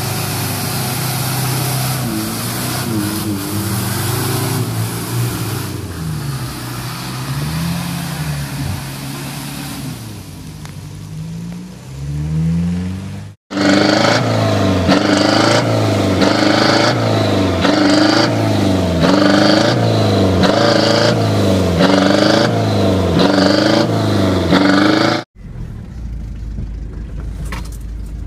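Off-road 4x4 engines revving in mud, pitch rising and falling. About 13 seconds in, a cut leads to a louder run of revs repeating about once a second. Near the end, another cut leads to a quieter, steadier engine.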